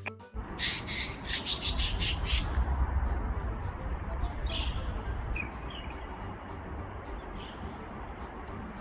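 A few short, high chirps over a steady rumbling noise, after a quick run of clicks about a second in.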